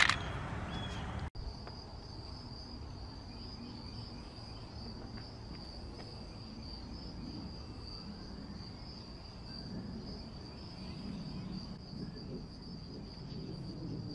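A brief metallic clink of screws at the very start. Then crickets trill steadily in one high, even tone over a faint low rumble.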